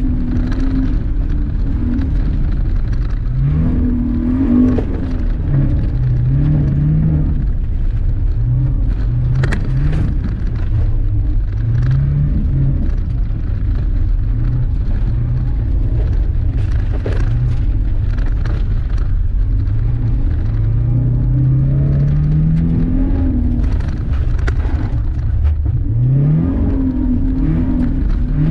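Subaru BRZ's flat-four boxer engine, heard from inside the cabin, revving up and down again and again as the car accelerates, lifts and turns on a dirt course. Sharp ticks and rattles of loose gravel against the car come through at times.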